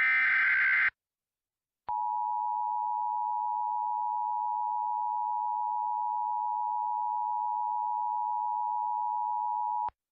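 Emergency Alert System tones: a short warbling screech of SAME header data ends about a second in, then after a brief gap the EAS two-tone attention signal sounds as a steady dual tone for about eight seconds and stops just before the end, announcing that an emergency alert message follows.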